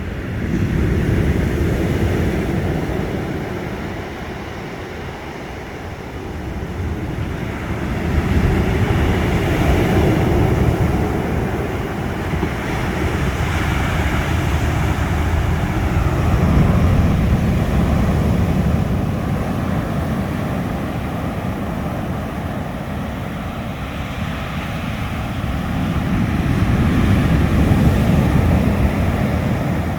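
Ocean waves breaking on the shore: a heavy, low wash of surf that swells and falls back in long surges, about every eight to ten seconds.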